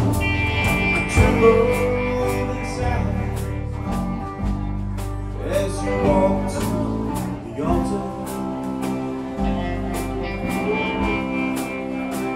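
Live alt-country rock band playing: electric and acoustic guitars, bass guitar and a drum kit keeping a steady beat on the cymbals.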